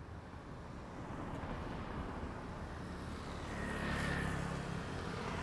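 Road vehicles passing on a city street: engine and tyre noise swells as one vehicle approaches and goes by close about four seconds in, with a brief high whine as it passes. A second vehicle begins to pass right at the end.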